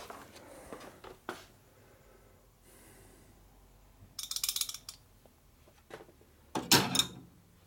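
Quiet workshop handling noise: a few light clicks, a short rattle of rapid ticks about four seconds in, and a louder brief burst near the end.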